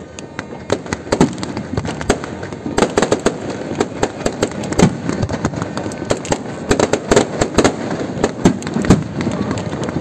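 Fireworks set off close by: a rapid series of sharp bangs and crackles from shells bursting overhead, sparse at first and growing into a dense barrage about three seconds in.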